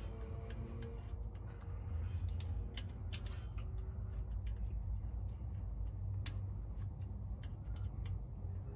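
Irregular light metallic clicks and taps of a T20 Torx bit being fitted to the mounting screws of a Chevy Tahoe's ABS module (EBCM), over a steady low rumble.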